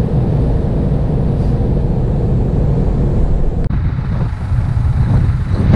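Car road and engine noise heard inside the cabin, a steady low rumble. About two-thirds of the way through it cuts off abruptly and gusty wind buffets the microphone.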